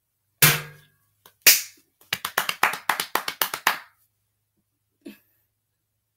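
Hands clapping: two loud single claps about a second apart, then a quick run of about a dozen claps that stops abruptly.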